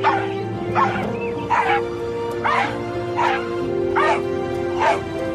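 Music with dog barks set to its beat, one short bark about every three-quarters of a second over held notes.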